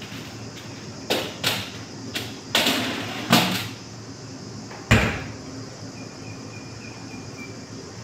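Metal tray clattering into the racks of a small electric oven in a few sharp knocks, then the oven's metal door shut with one loud clack about five seconds in.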